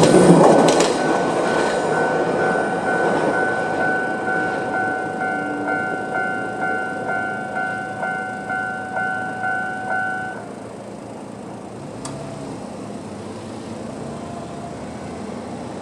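Japanese railway level-crossing warning bell ringing at about two dings a second as a Moka 14 diesel railcar finishes passing and runs away; the train noise fades over the first couple of seconds. The bell cuts off about ten seconds in, leaving quieter background.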